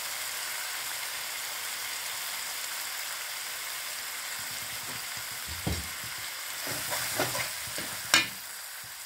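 Lamb pieces in spices frying on low heat in a metal pot: a steady sizzle. From about halfway through, a metal spoon stirs and scrapes against the pot, with a sharp clink near the end.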